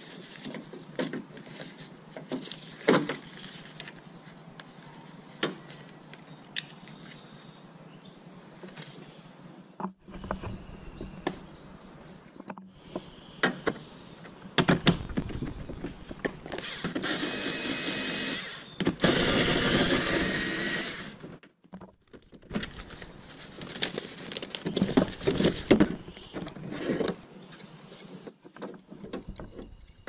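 Hand-tool work inside an open car door: scattered clicks and knocks of tools on metal parts. Past the middle comes a few seconds of a power tool running steadily with a 10 mm socket, undoing the door lock's bolts.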